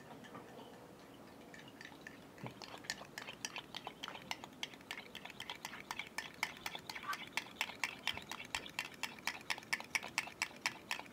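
A fork whisking raw eggs in an enamel bowl, its tines clicking rapidly against the bowl, about five or six strokes a second. The whisking starts about two and a half seconds in.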